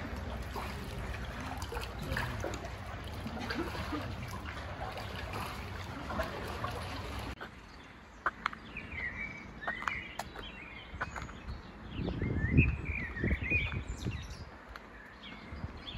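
Steady outdoor background noise, then after an abrupt change about halfway through, small birds chirping and twittering. A few low thumps come about three-quarters of the way through.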